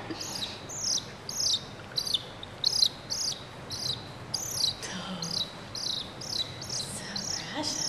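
Young mongoose giving a steady run of short, high-pitched chirps, each rising then falling, about two to three a second.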